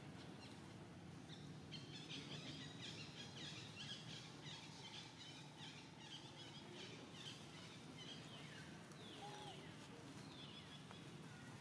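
Faint outdoor background hum with small birds chirping in quick runs of short, high, falling notes, starting about two seconds in.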